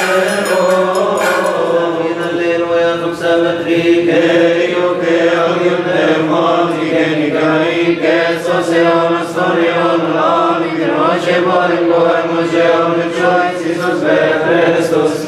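Coptic liturgical chant: several voices chanting together on long, sustained melodic lines.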